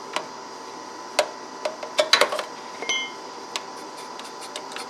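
Scattered metal clicks and clinks of a wrench on the adjustment nut of the mower's electric PTO clutch while its air gap is being set, with a small cluster about two seconds in and one short ringing clink about three seconds in.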